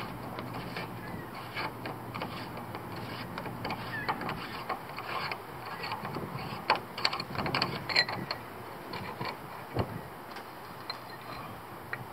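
Irregular small clicks, taps and scrapes from hands working an oil catch can and its hoses apart to open it. The clicks come thickest about seven to eight seconds in.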